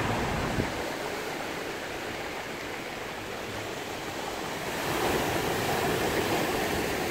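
Ocean surf breaking and foaming in over a rocky boulder shoreline, a steady rush of water that eases off and then swells again about five seconds in as the next wave washes in.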